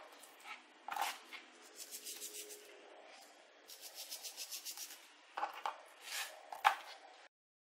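Hands sprinkling and rubbing salt onto raw sea bass fillets on a cutting board, with soft slaps as a fillet is turned over. Faint, with two runs of quick scratchy pulses and a sharper slap near the end; the sound cuts off suddenly just before the end.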